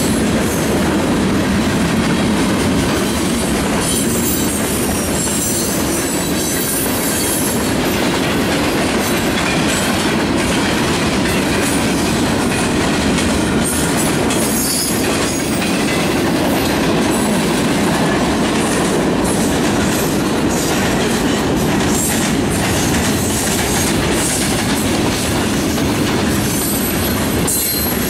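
Freight train of boxcars and covered hopper cars rolling past at steady speed: a loud, even rolling noise with irregular wheel clicks over the rail joints.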